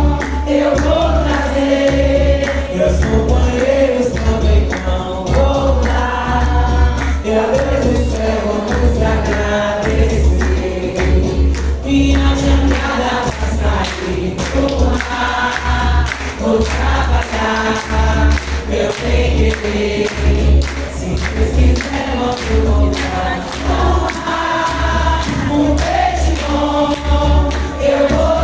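Live music: a group of voices singing together over a loud, steady ensemble of drums.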